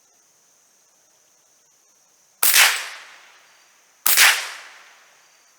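Two shots from a Savage Model 64 semi-automatic .22 LR rifle, about a second and a half apart, each ringing off over about a second.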